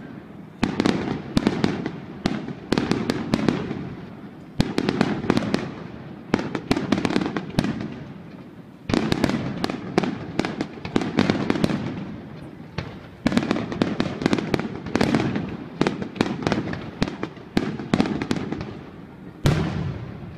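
Fireworks display: rapid volleys of sharp bangs, several a second, each run echoing into a low rumble, with short lulls every few seconds.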